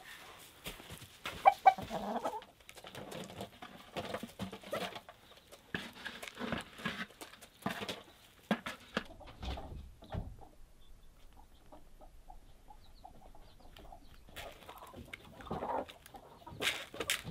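Chickens clucking while they crowd round and feed, with scattered short clicks and knocks. It is loudest about a second and a half in, goes quieter for a few seconds past the middle, and picks up again near the end.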